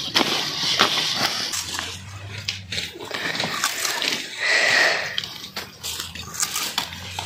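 Dry sugarcane stalks and leaves rustling and crackling as a man handles and chews a freshly cut sugarcane stalk, with scattered sharp cracks and crunches.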